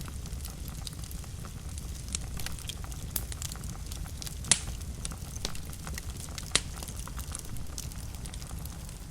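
Wood fire burning in a fireplace: a steady low rumble of flames with frequent crackles and sharp pops, two louder pops about four and a half and six and a half seconds in.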